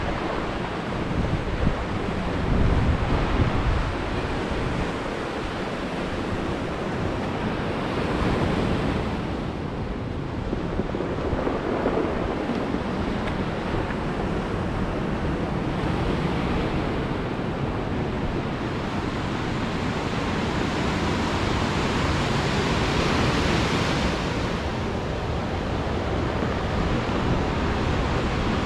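Sea surf breaking and washing over rocks and a black pebble shore, swelling and ebbing every few seconds after stormy weather. Wind buffets the microphone, most heavily in the first few seconds.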